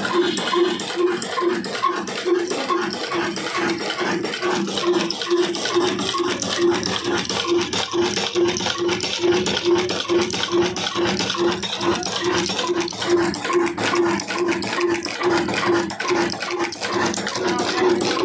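Old Fine Mughal stationary diesel engine running steadily, with a regular beat about three times a second over a constant mechanical clatter.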